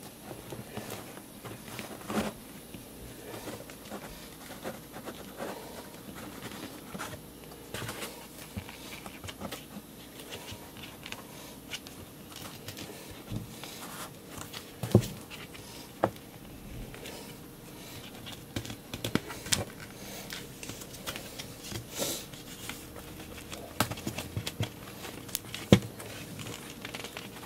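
Hands handling a cardboard box close to the microphone: scattered scratches, rubs and light taps of fingers on card, with a couple of sharper knocks about halfway through and near the end.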